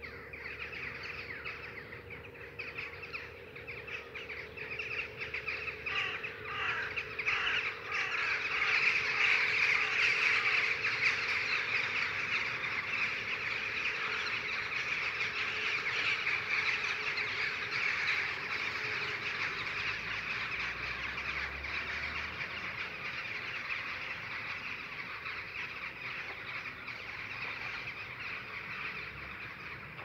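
A large flock of birds passing overhead, many calling at once in a dense, continuous chorus that swells about eight seconds in and then slowly fades.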